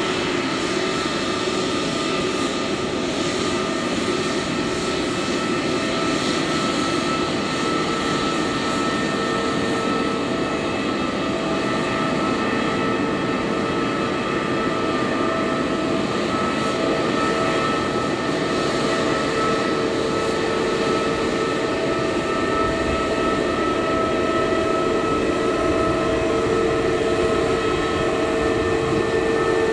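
Airbus A320neo's twin CFM LEAP-1A turbofans running at taxi thrust: a steady jet whine made of several held tones over a rushing noise. It grows slightly louder near the end.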